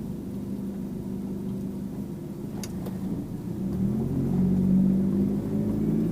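2001 Infiniti G20's four-cylinder engine, fitted with an aftermarket cat-back exhaust, running steadily at low revs, then revving up as the car accelerates about four seconds in.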